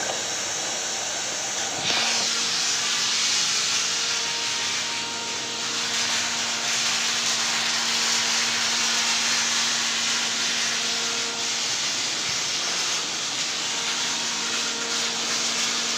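Robotic welding cell running: a steady hiss with a low electrical hum, stepping up in level about two seconds in and then holding steady.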